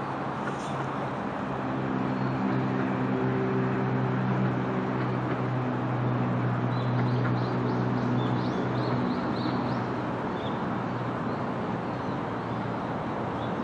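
A steady low engine hum rises in over the first couple of seconds and fades after about ten, over a constant rushing noise. A few short, high bird chirps come about seven to nine seconds in.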